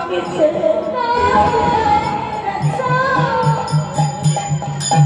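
Kirtan music: a woman singing a devotional melody into a microphone with harmonium. About halfway in, a steady drum beat of about four strokes a second joins, with sharp metallic cymbal clashes near the end.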